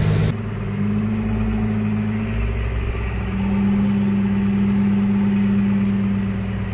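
Fishing boat's engine running steadily, a loud low hum; a stronger steady note comes in briefly about a second in and again from about three seconds in until near the end.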